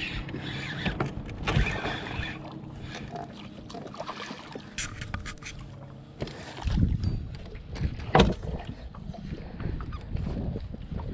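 A spinning reel being cranked to bring in a hooked largemouth bass, with the fish splashing at the surface and a few heavy low thumps and splashes as it reaches the boat.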